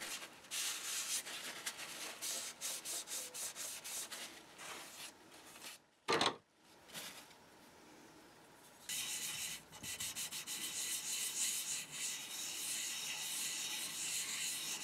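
Small model steam engine parts being rubbed by hand on 800-grit wet-and-dry abrasive paper on a flat plate, lapping their faces flat: a fast run of scraping strokes, then a brief thump about six seconds in, then steadier continuous rubbing from about nine seconds.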